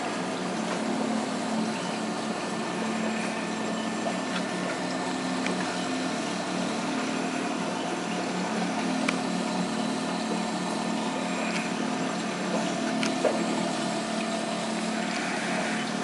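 Saltwater aquarium equipment running: a steady pump hum under an even hiss of circulating water, with a few faint ticks.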